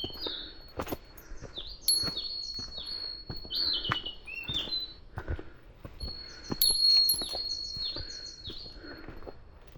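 Wild birds singing: a high thin whistle held for a second or two and repeated, mixed with short falling notes and tiny very high chirps. Under them run steady footsteps on a dirt mountain trail, about one step a second.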